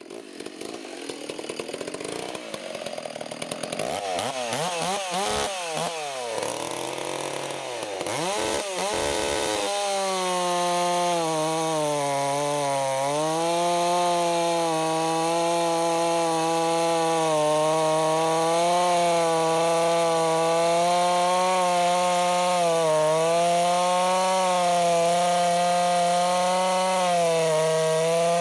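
Ported Stihl 066 two-stroke chainsaw with a 36-inch bar and .404 chain cutting through a stack of oak railroad ties. Its pitch wavers up and down for the first ten seconds or so, then the engine holds a steady high pitch under load in the cut, dipping slightly now and then.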